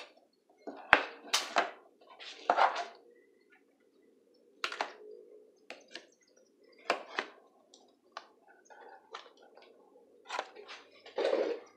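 Handling noise: a scattering of sharp clicks and knocks as a rotary tool's flexible-shaft handpiece and its cable are picked up, turned in the hands and set down on a workbench, the loudest knock near the end.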